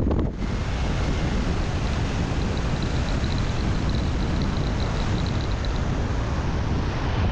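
Steady road and wind noise of a moving vehicle: a deep rumble under a hiss. A faint, high, pulsing tone comes and goes through the middle.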